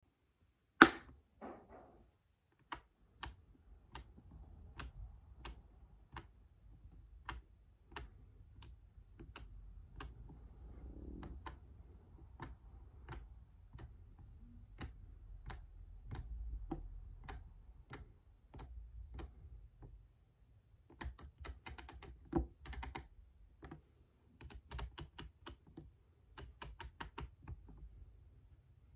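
Sharp clicking from a homemade electronic dice game's switching circuit as its lamps step: one louder click about a second in, then a steady click roughly every 0.7 s, giving way to quick runs of rapid clicks in the last third.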